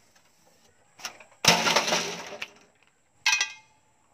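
Handling clatter from a CRT television's plastic cabinet and glass picture tube being moved. A sharp knock about a second and a half in is followed by about a second of clatter, then a shorter clink with a ringing note near the end.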